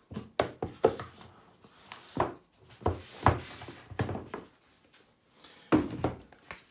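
Cardboard packaging boxes being handled, moved and set down: irregular knocks and rubbing scrapes.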